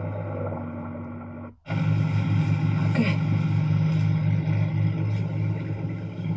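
Diesel engines of a backhoe and a mini excavator running. The sound breaks off abruptly about a second and a half in, then engine noise comes back as a steady low throb.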